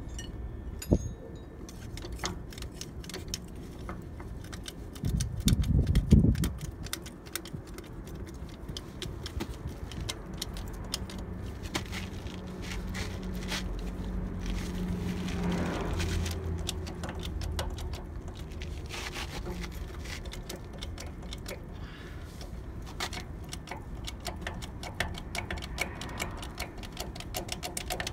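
Steel chain of a chain wrench clinking and rattling against a truck's wheel hub as it is worked, with scattered metal clicks and scrapes. A brief, louder low rumble about five seconds in.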